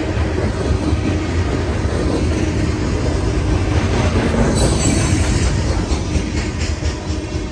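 Coal hopper cars of a freight train rolling past, a steady noise of steel wheels on rail with clicks over the rail joints. A brief high-pitched wheel squeal comes a little past the middle.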